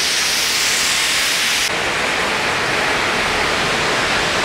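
Large circular block saw cutting a granite block under its cooling water, a steady loud hiss. About two seconds in, the sound changes abruptly and the high hiss drops away.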